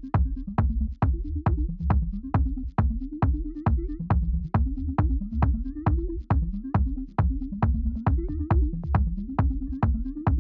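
Electronic background music with a steady beat, about two beats a second, over a sliding bass line.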